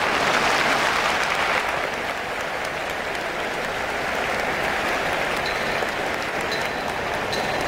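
Audience applauding, loudest in the first second and a half, then holding steadier.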